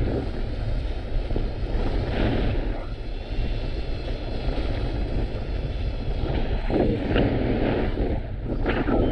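Strong wind buffeting the microphone: a loud, steady rumble and rush that swells and eases with the gusts.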